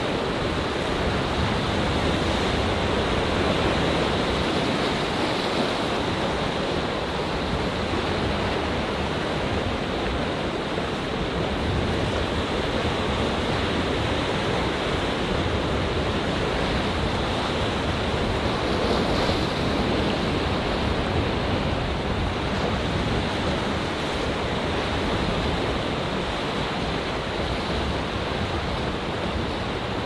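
Rough Atlantic surf churning among shoreline rocks: a steady, unbroken rush of waves.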